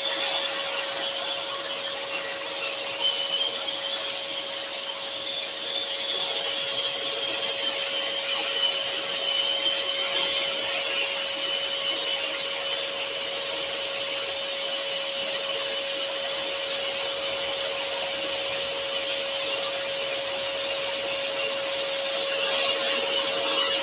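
Axminster Trade AT406SS scroll saw running steadily, its Pegas number 4 spiral blade cutting through a 10 mm wooden panel: a steady hum over an even, hissy sawing noise.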